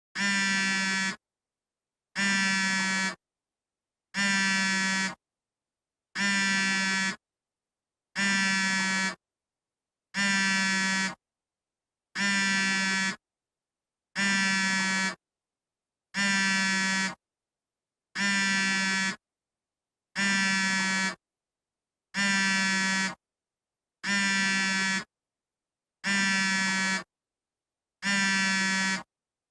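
An iPhone vibrating for an incoming call: even one-second buzzes, one every two seconds, about fifteen in a row.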